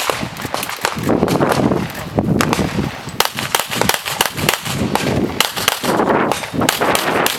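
Pistol shots fired in a fast, uneven string, some spaced close together and others with short gaps between them.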